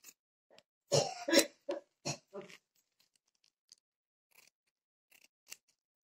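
A short run of coughs about a second in, then faint snips of scissors cutting cotton blouse fabric.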